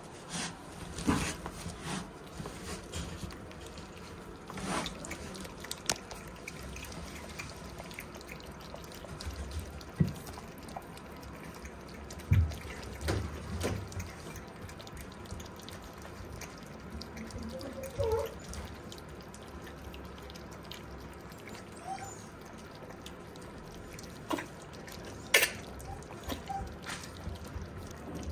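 Several black Shiba Inu puppies lapping thin milky weaning food from a plate: irregular wet lapping and slurping clicks.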